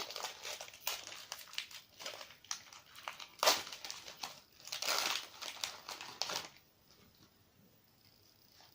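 Foil booster-pack wrapper crinkling and crackling as it is handled and opened, with sharp crackles about three and a half and five seconds in; it stops about six and a half seconds in.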